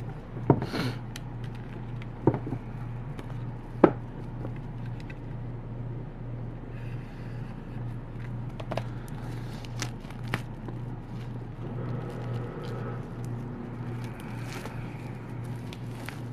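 Knife cutting and peeling plastic shrink wrap off cardboard game punchboards: a few sharp clicks and taps in the first four seconds, then soft scraping and plastic crinkling, over a steady low hum.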